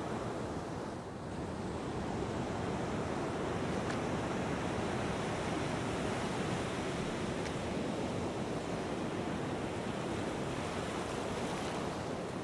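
Steady wind and sea noise, an even rush with no distinct events.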